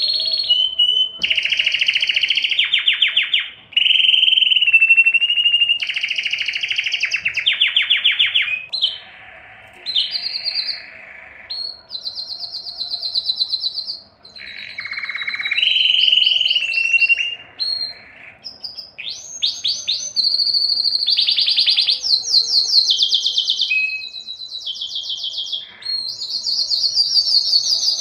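Domestic canary singing a long, continuous song of rapid trills (rolls), switching every second or two to a new roll at a different pitch, with a few quick high whistled notes between them.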